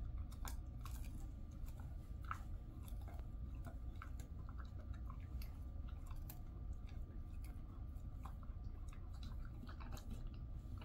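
Jindo dog chewing a chicken-wrapped dried capelin treat: irregular crunches and clicks of teeth on the hard snack over a steady low hum.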